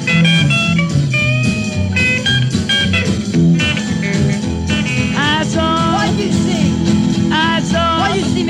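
Rock-and-roll band playing an instrumental break, with lead guitar over a steady bass and rhythm; from about halfway through the lead notes bend upward in pitch.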